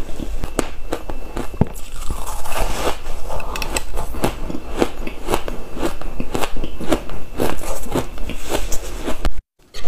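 Close-up crunching of crumbly ice being bitten and chewed: a rapid, irregular run of sharp crackling crunches that cuts off abruptly just before the end.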